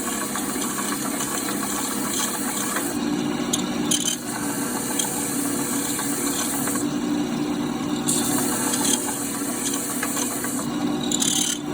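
Electric motor of a power sanding tool running steadily, with the hiss of a wooden turkey call being finish-sanded against the abrasive in stretches of a few seconds.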